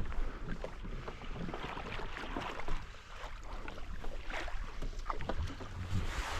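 Water lapping and slapping against a kayak hull in choppy water, with gusts of wind buffeting the microphone.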